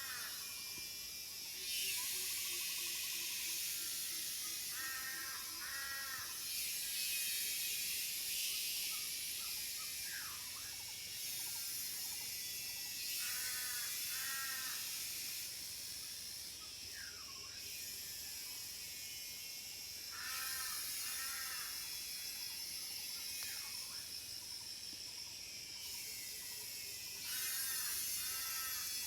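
A forest chorus of cicadas, a dense high-pitched buzz that swells and drops off in blocks. A bird repeats a short phrase of arched notes about every seven seconds, with a few quick falling calls in between. Near the start there is a low, slowly descending run of notes.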